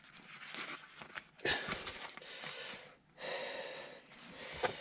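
Soft rustling handling noise with a few light clicks as the removed gear knob and its gaiter ring are turned over in the hands, in three short spells.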